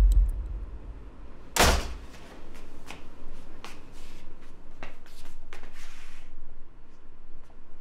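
A sharp knock or thud a little under two seconds in, followed by scattered small clicks and knocks and a brief rustle: a person moving about and handling things in a small room.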